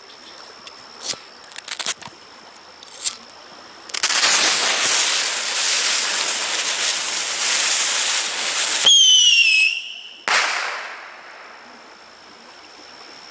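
Lit hand-held firework: a few small crackles, then a loud hissing spray for about five seconds, cut off by a short whistle that dips slightly in pitch, and a final brief hiss that dies away.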